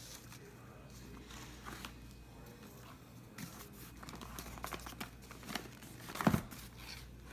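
Packaging being crinkled and torn open by hand: faint scattered rustles and crackles, with one louder rustle about six seconds in.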